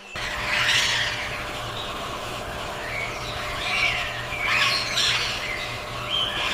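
Birds chirping and calling in scattered short bursts over a steady background hiss and a low hum.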